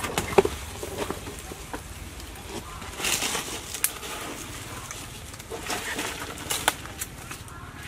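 Leaves and branches rustling and snapping as a person climbs a tree, with a few sharp cracks about half a second in and louder rustling bursts around three seconds and again around six seconds.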